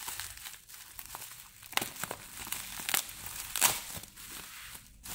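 Plastic bubble wrap crinkling and crackling as it is handled and pulled at to unwrap it, with irregular sharp crackles, the loudest about two, three and three and a half seconds in.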